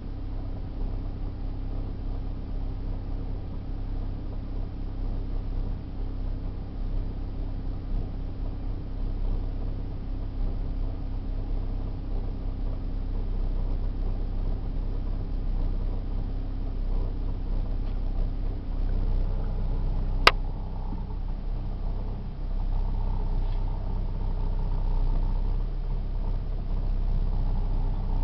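Daewoo Lanos engine running steadily, recorded for an extraneous noise of unknown cause, with a single sharp click about two-thirds of the way through.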